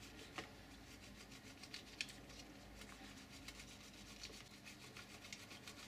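Faint rasping scrape of a slice of wholemeal bread being rubbed over a metal box grater to make breadcrumbs, with a few light ticks.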